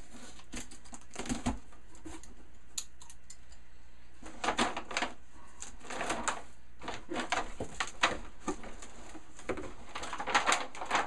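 A cardboard shipping box being opened, with light scratches and clicks as the tape is worked open. From about four seconds in, clear plastic bags crinkle and rustle as they are pulled out of the box.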